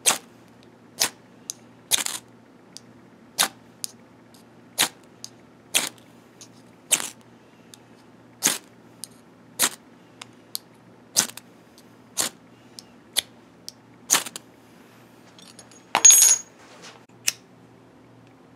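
Ferrocerium rod struck with a steel striker, short sharp scrapes about once a second with a few lighter ones between. A longer, louder scrape comes about 16 s in, followed by one more click.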